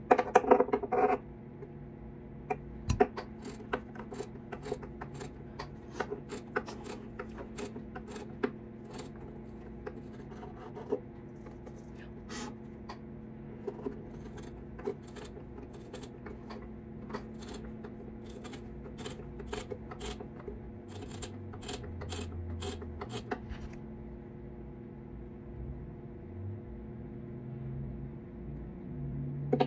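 Small hand tool cutting and scraping wood on a fiddle body: irregular short scrapes and clicks, over a steady low hum. A louder clatter comes in the first second.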